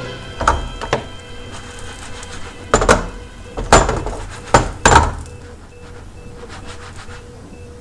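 Frying pan and spatula knocking and clattering against the gas hob's grates as the pan is taken in hand, about seven sharp knocks over the first five seconds, with background music.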